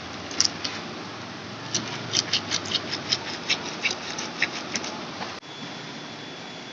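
Hands squeezing and crushing fresh green leaves in water in a coconut-shell bowl: a run of short wet crackles and squelches, about three or four a second, over the steady rush of a stream. The crackles stop about five seconds in, leaving only the stream.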